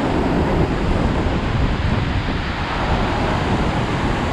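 Steady roar of the Iguazu Falls waterfalls and the rapids beneath the walkway, heavy falling water close by, with wind rumbling on the microphone.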